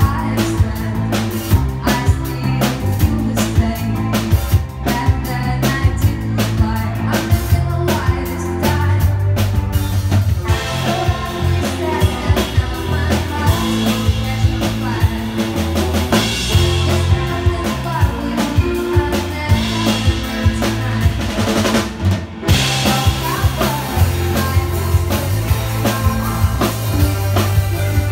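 Live band playing rock/pop with a woman singing, driven by a drum kit and electric bass, with electric guitar. Drum hits and a steady bass line run throughout; cymbals fill in more from about ten seconds in. The band stops for a split second about 22 seconds in, then comes straight back in.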